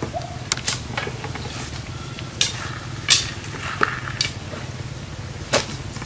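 Bamboo sticks being handled, clattering against each other and a plastic bucket with several sharp wooden knocks, the loudest about three seconds in and near the end. A steady low hum runs underneath.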